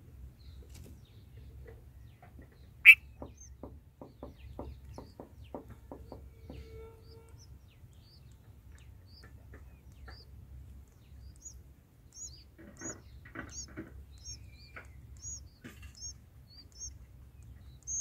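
Bulbul nestlings begging with a regular series of short, thin, high cheeps, about two a second through the second half. Earlier there is one sharp loud click followed by a run of soft ticks, all over a faint low rumble.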